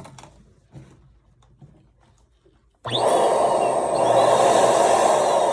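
Faint rubbing and handling of latex balloons, then about halfway through an electric balloon pump switches on abruptly and runs loudly and steadily with a thin high whine.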